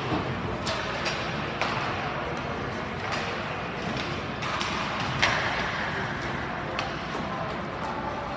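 Ice hockey play heard at rinkside: sharp clacks of sticks on the puck and the puck against the boards, several times, the loudest about five seconds in, over a steady arena hum with voices.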